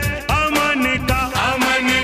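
Indian film-style song: a melodic line with pitch bends and ornaments over a steady beat.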